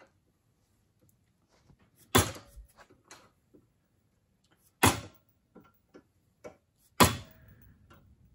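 Three sharp knocks of a mallet striking the long metal handle of a tool set on a threaded hose bib fitting in a bench vise, each blow tightening the fitting a little more. The blows fall about two to three seconds apart, with faint clicks and handling noise between them.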